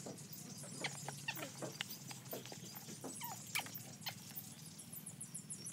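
Gloved hands scooping and pressing loose coconut-coir and cow-manure potting mix around a potted plant: soft rustling and crunching with scattered sharp crackles, over faint short squeaks.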